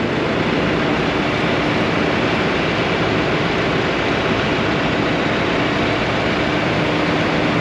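Engine of an old self-propelled farm machine running steadily at idle.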